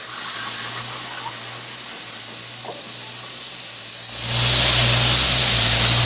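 Construction site machinery: a steady engine hum, joined about four seconds in by a much louder rushing hiss with deeper engine rumble.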